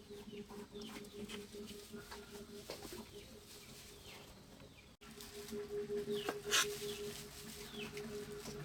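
Chickens clucking, with many short falling peeps of chicks, over a steady low hum. A single sharp knock about six and a half seconds in.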